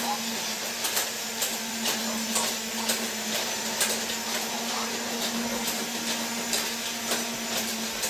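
Toy Disney Monorail Playset trains running on their track: a steady small electric motor hum and whir, with light clicks about twice a second.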